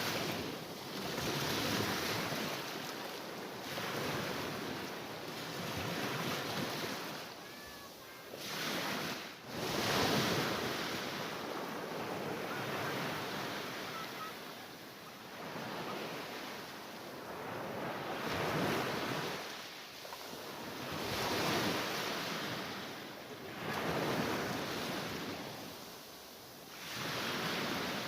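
Mediterranean sea waves breaking and washing in, the surf swelling and falling back every two to three seconds.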